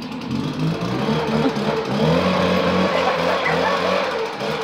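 Gas-powered backpack leaf blower running, its engine revving up over the first couple of seconds and then holding at high speed.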